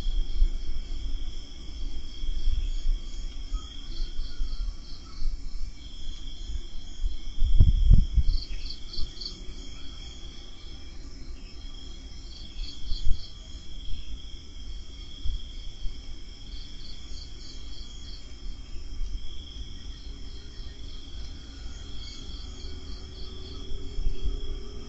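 Night insects, crickets among them, chirping without a break: one steady high trill, with another insect's rapid pulsing chirps coming and going. Low rumbles and thumps sound underneath, the loudest about eight seconds in.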